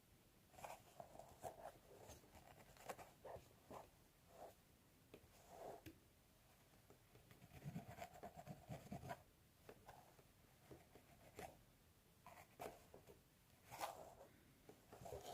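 Fingernails scratching through hair on a scalp in short, irregular strokes, with a longer rubbing stretch in the middle.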